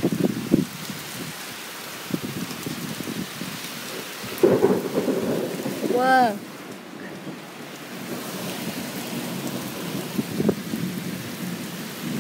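Heavy rain pouring in a windy storm, with irregular low rumbling gusts throughout. The rumbling is loudest around the middle. About six seconds in, a brief voice-like tone rises and falls.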